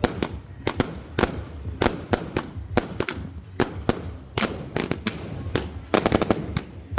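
Fireworks and firecrackers going off: a steady string of sharp bangs and cracks at irregular intervals, with a quick rattling run of cracks near the end, over a low rumble.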